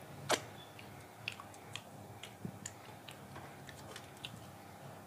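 Eating by hand from a steel plate: scattered small clicks and smacks from chewing and from fingers on the plate, the sharpest one about a third of a second in.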